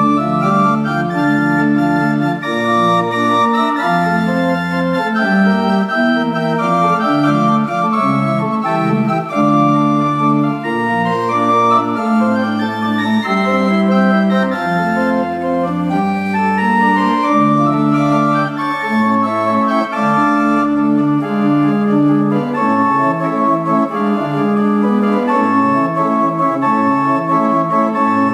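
Old English chamber pipe organ playing a slow piece in sustained chords over a moving bass line. The lowest bass notes drop out about three-quarters of the way through, leaving higher chords.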